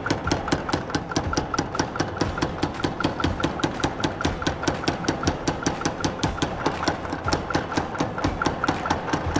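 Power hammer running steadily, its dies striking a hot steel bar in a fast, even rhythm of about five blows a second.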